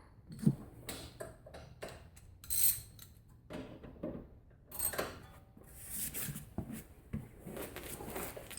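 Scattered metallic clinks and knocks of hand tools and parts being handled during car suspension work.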